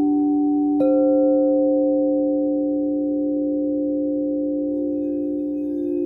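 Frosted quartz crystal singing bowls from a chakra-tuned set, several of them ringing together in steady, overlapping tones. About a second in, one bowl is struck with a mallet, adding a higher sustained note.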